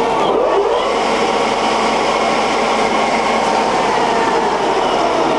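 Stankoimport IM63 centre lathe running with its spindle at 1000 RPM: a loud, steady headstock gear noise made of many tones together, with a few tones sliding in pitch near the start.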